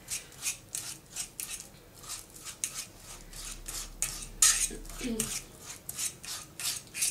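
Ripe bananas being mashed by hand in a stainless steel pot, a quick run of strokes against the metal, about three a second.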